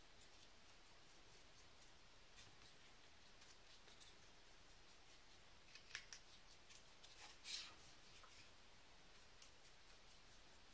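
Near silence, with faint scratchy strokes of a small paintbrush dry-brushing acrylic paint onto a painted cardboard model; two slightly louder scrapes about six seconds in and a second and a half later.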